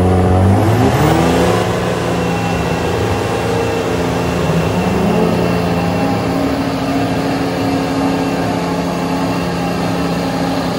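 Cummins and Duramax diesel truck engines revving up about a second in, then held steady at high revs.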